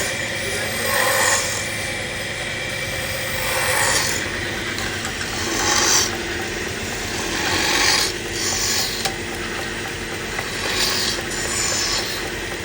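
A cutting tool rasping against wood being turned on a lathe, in repeated scraping passes that swell every two or three seconds over a steady machine noise.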